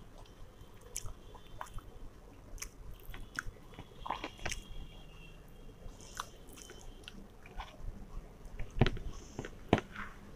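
A person eating veg fried rice by hand and chewing, close to the microphone, with scattered small wet clicks and smacks. Two sharper clicks stand out near the end.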